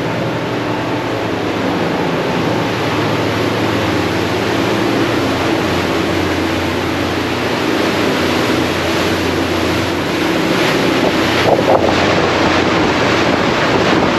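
Motor yacht running fast in rough water: a steady low drone of its diesel engines under the rush of the wake and bow spray, with wind buffeting the microphone. A short sharp sound about eleven and a half seconds in.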